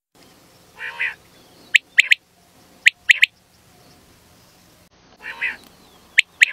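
Common quail singing: a short lower note followed by its sharp three-note 'whit, whit-whit' call, given twice in quick succession, then the lower note and another three-note call near the end.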